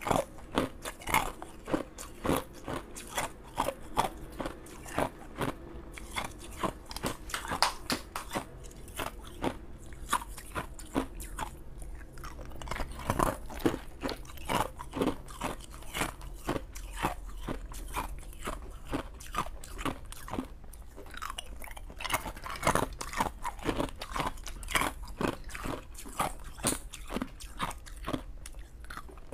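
Clear ice cubes being bitten and chewed, close-miked: a continuous run of sharp, cracking crunches in quick succession.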